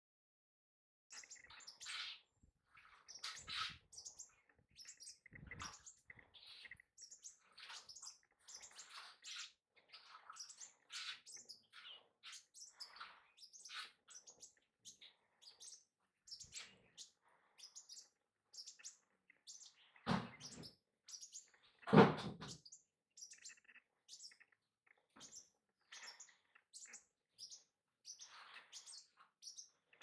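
Male green-tailed sunbird calling: a long, irregular run of short, high chirps. Two louder dull thumps break in about two-thirds of the way through.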